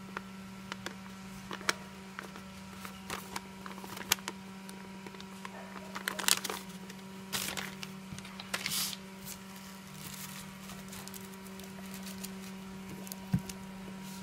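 Paper and cardboard being handled: a sheet of paper rustling and crinkling, with scattered light clicks and taps and a few louder rustles around the middle, over a steady low hum.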